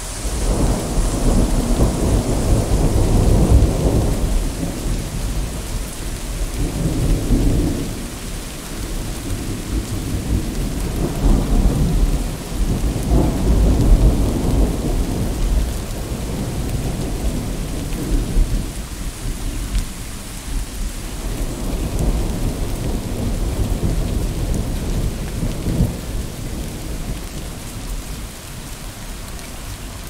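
Steady rain hissing on water and foliage, with rolling thunder that swells and fades several times as long deep rumbles, dying down near the end.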